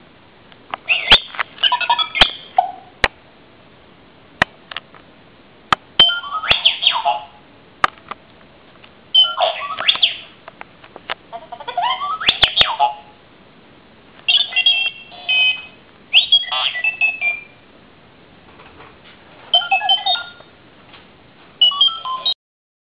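R2-D2 alarm clock toy playing R2-D2's electronic beeps and warbling, swooping whistles in about nine short bursts of around a second, with pauses between. Sharp clicks fall in between the bursts.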